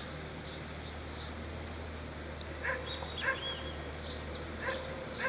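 Scattered short animal calls, a few brief yips and high chirps, over a steady low hum.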